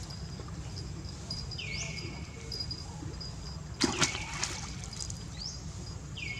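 A young macaque splashes into pond water about four seconds in: a short, loud splash. Behind it, a high call repeats every two to three seconds, each one dropping in pitch and then holding.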